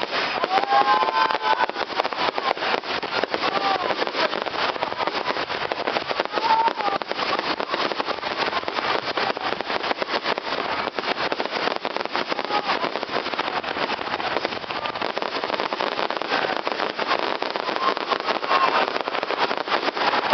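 Fireworks crackling: a dense, steady rattle of rapid small pops that never lets up.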